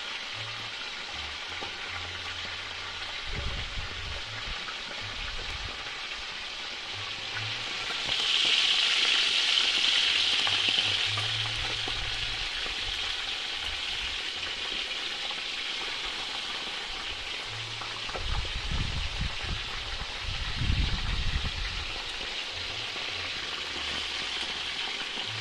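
Whole mojarras (tilapia) frying in oil in a pot over a wood fire: a steady sizzle that grows louder about eight seconds in. There are a few low rumbles, mostly in the second half.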